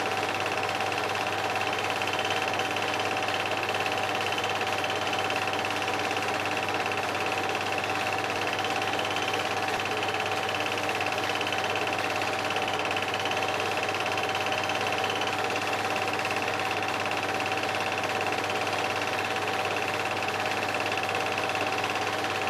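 Film projector running: a steady mechanical whir with a constant high whine, unchanging throughout.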